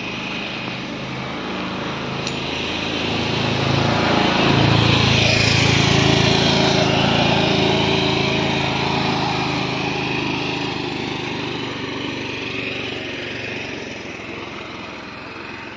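The engine of a small motor vehicle passing on the road: its steady drone grows louder to a peak about five seconds in, then slowly fades away.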